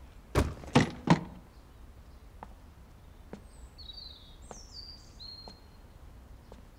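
Three quick thumps in the first second and a half. Then a few short high bird chirps and faint regular ticks about once a second over a quiet background.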